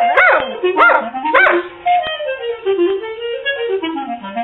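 A dog giving three short yelping barks in the first second and a half, over music with a wind instrument that carries on after.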